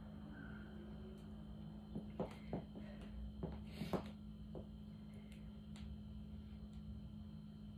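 Quiet room tone: a steady low hum, with a handful of faint soft taps and clicks between about two and five seconds in.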